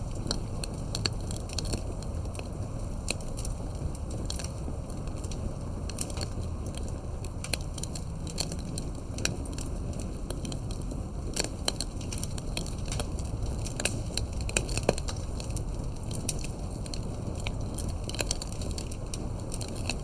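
Campfire burning with a steady low rush of flames and frequent irregular sharp crackles and pops of burning wood.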